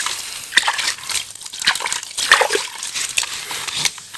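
Water sloshing and splashing by hand, with irregular small knocks, as toy vehicles are washed in a basket.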